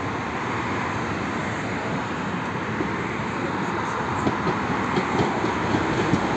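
Two-car tram approaching and passing close by, its steady rumble growing, with a run of short sharp knocks in the second half as it draws level.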